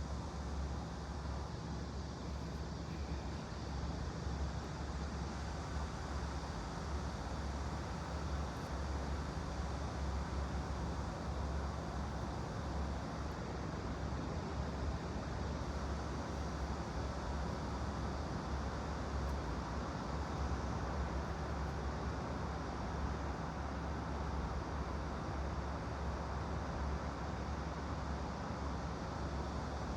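Steady white-noise ambience: a constant low rumble under an even hiss, with no distinct events.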